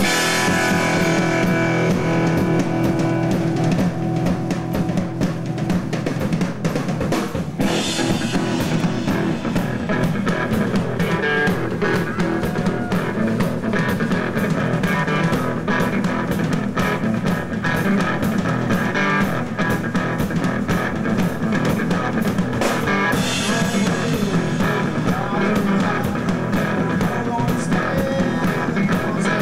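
Rock band playing live: a drum kit and an electric guitar kick in together suddenly and keep going as a full, loud song.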